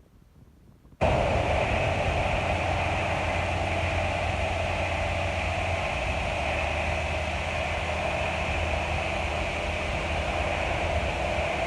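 Claas Lexion 750 TT tracked combine harvester running steadily at harvesting, an even machine drone and hiss that cuts in about a second in after a near-silent gap.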